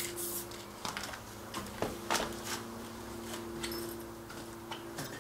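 A few sharp clicks and knocks among loose debris, over a steady low hum.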